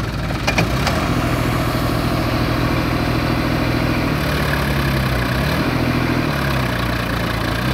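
Diesel engines of a New Holland tractor and a JCB 3DX backhoe loader running together, the tractor idling while the backhoe works its boom. The engine note dips and rises a few times about halfway through, and there are a couple of sharp knocks in the first second.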